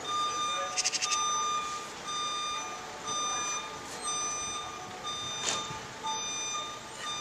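Forklift's warning beeper sounding in long, steady-pitched beeps about once a second. A short rattle of clicks comes about a second in, and a single knock near the middle.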